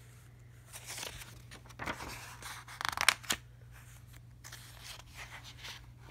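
Pages of a paperback picture book being turned and handled: paper rustling, with a few crisp snaps of the page about three seconds in and softer rustling towards the end.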